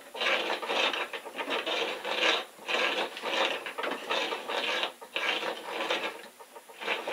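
Hand-turned home-canning seaming key crimping a tin lid onto a glass jar: a rasping metal scrape repeated about once a second as the handle is turned around the lid.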